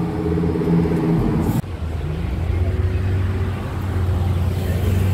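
Lamborghini Huracán Performante's V10 engine running as the car pulls away, cut off suddenly after about a second and a half. Then another sports car's engine rumbles low and steady, with a brief rise in pitch about two seconds in.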